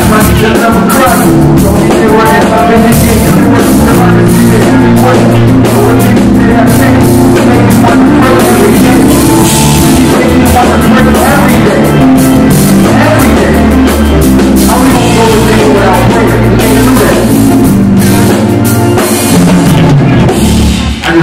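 Loud hip-hop backing track with a steady drum beat and heavy bass, played live through the PA speakers.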